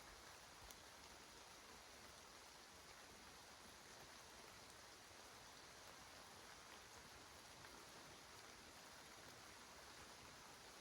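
Near silence: faint steady hiss of a forest after rain, with a few faint drips.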